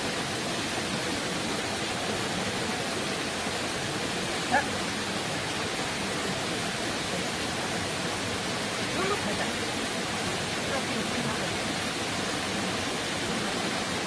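Shallow mountain stream rushing steadily over rocks, with a short, sharp high-pitched sound about four and a half seconds in.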